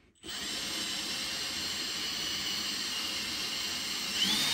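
Makita 18V cordless drill running steadily as its bit drills through an aluminium gusset and angle frame. Near the end its pitch briefly rises and falls.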